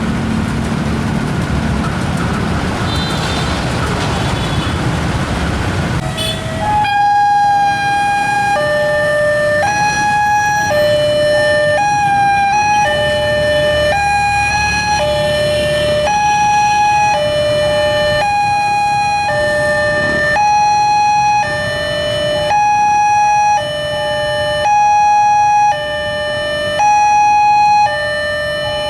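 Road traffic running, then about seven seconds in a level crossing's electronic warning alarm starts: a loud high note and a lower note alternating about once a second, the signal that a train is coming and the crossing gates are closing.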